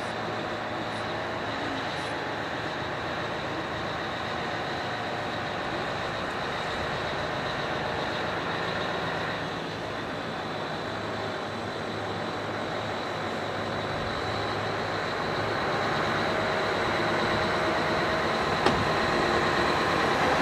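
Diesel engine of a Matterhorn Gotthard Railway HGm 2/2, a small two-axle diesel-electric locomotive, running steadily with a high whine as it creeps out of the depot shed. It grows louder over the last several seconds as it draws near, with a single sharp click near the end.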